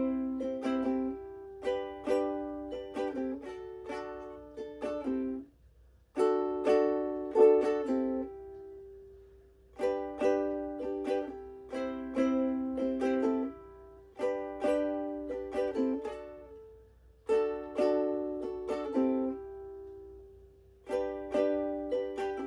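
Ukulele strummed in chord riffs: short phrases of several quick strums, each ringing out and fading before a brief pause and the next phrase.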